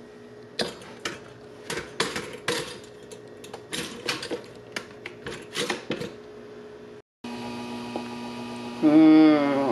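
Kitchen clicks and clatter of frozen waffles going into a two-slot pop-up toaster and its lever being pushed down, over a steady electrical hum. Near the end, after a brief break, a held wavering tone.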